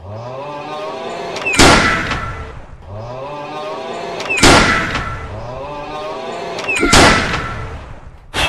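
Three loud, sharp sound-effect blaster shots about two and a half seconds apart, each led in by a rising charge-up hum and followed by a fading ring, with a short final burst at the very end.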